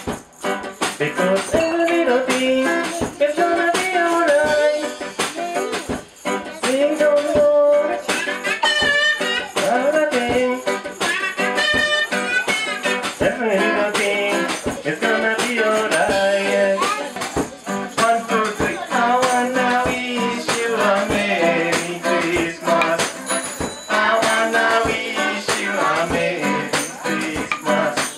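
Live one-man-band music: a strummed acoustic guitar over a busy beat from a back-mounted drum, a cymbal and rattling percussion, with a wavering melody carried over the top.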